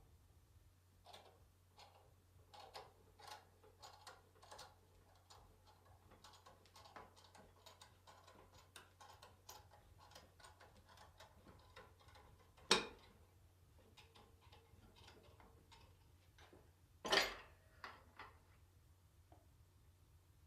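Light metallic clicking and tapping of hand tools against transmission parts, in an irregular run of small ticks, with two sharper, louder knocks later on.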